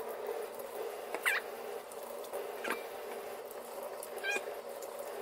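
Kitchen tap running as an apple is rinsed under it, with three short, high squeaks spaced about a second and a half apart.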